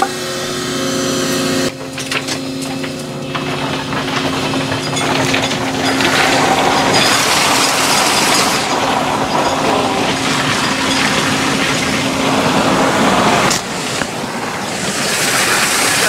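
Excavator bucket pouring #57 clean gravel into a wooden form: a steady rattling pour of stones that thickens a few seconds in and runs on, over the excavator's engine running at a steady pitch. The stones pause briefly near the end, then pour again.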